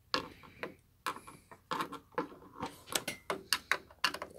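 An irregular run of light clicks and knocks as small hard objects, a screwdriver and loose AA batteries, are handled and shifted on a desk.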